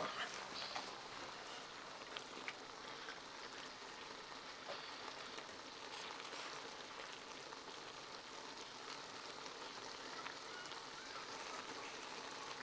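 Faint, steady sizzling and bubbling of noodles, meat and vegetables cooking in a wok over an open fire, with a few small crackles scattered through.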